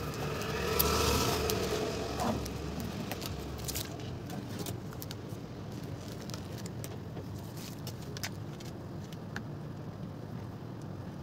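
Electrical tape being peeled off the edge of a car's headlight: a crackling rip in the first couple of seconds over a low rumble, then scattered small clicks and rustles as the tape is pulled away and handled.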